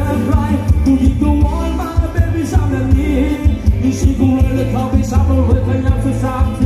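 A live band playing Thai ramwong dance music with a singer, loud, with a heavy, pulsing bass beat.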